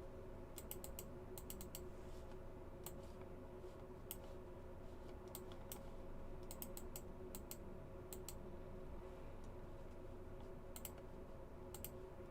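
Faint typing on a computer keyboard, keystrokes coming in short scattered runs with pauses between, over a low steady hum.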